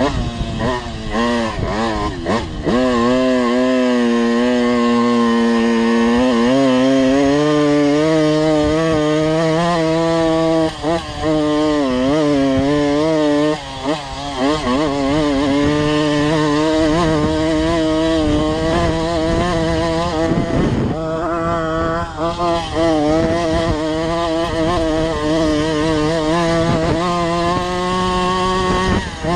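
Tomos automatic moped's small two-stroke engine under load, its note rising and falling with the throttle and dropping off briefly a few times. It is running on the wrong carburettor jet, which the owner says is why it doesn't run very well.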